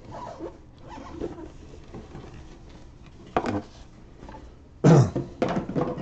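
Cardboard game box lid being worked off a tight-fitting box, with rubbing and scraping of cardboard, a short knock about three and a half seconds in and a louder thump about five seconds in.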